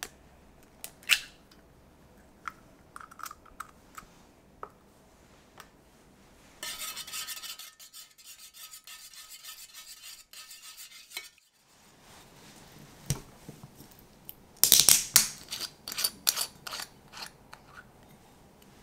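An egg cracked against an enamel dish with one sharp crack about a second in. In the middle, a small metal wire whisk beats it into coffee in the dish for about five seconds, a fast steady scraping rattle. Near the end comes a run of sharp clicks and taps.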